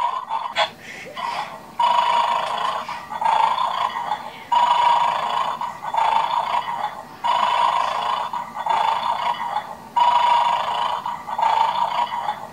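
Battery-powered toy bulldog from the Bad Dog game snoring through its small speaker: a recorded snore repeating about every one and a half seconds, the sign that the dog is still asleep and has not yet been set off to bark.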